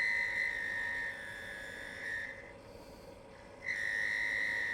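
Wood lathe spinning a black walnut spindle while a turning tool cuts it, giving a steady high whine. The cut breaks off a little past two seconds in, leaving only the lathe's low hum, then resumes about a second and a half later.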